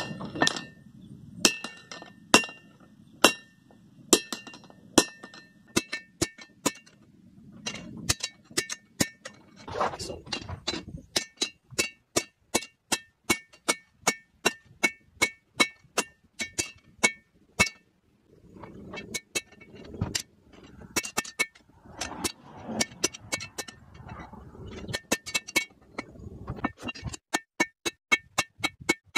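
Hammer blows on a steel bar from an old chisel plow lying on an anvil, forging it into a knife blade: a long run of sharp strikes, two to three a second, each with a clear ringing note from the anvil, broken by a few short pauses, the longest about 18 seconds in.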